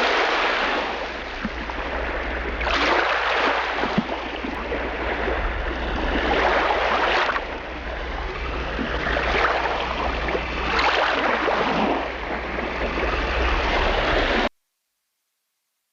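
Water splashing and sloshing around a kayak in surges every two or three seconds, over a steady low wind rumble on the microphone. It cuts off suddenly near the end.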